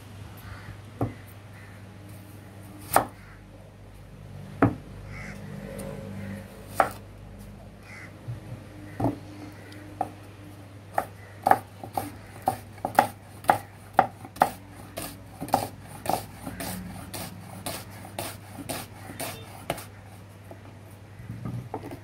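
Kitchen knife slicing an onion on a wooden chopping board: sharp knocks of the blade hitting the board, a few spaced apart at first, then a steady run of about two cuts a second through the second half.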